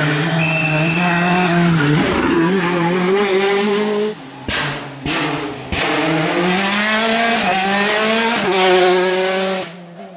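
Turbocharged R5 rally cars at full throttle, their engines revving up and dropping in pitch as they shift gears. The sound cuts off abruptly a couple of times midway, then comes back, and fades near the end.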